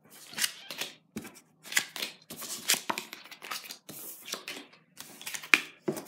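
Playing cards being slid and picked up one by one off a wooden table: irregular short scrapes and taps, the sharpest a little after five seconds in.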